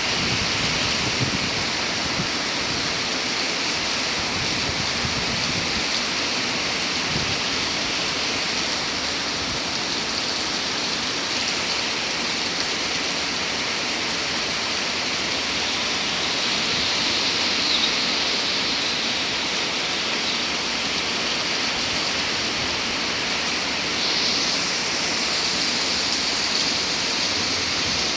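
Rain falling steadily, an even hiss without breaks.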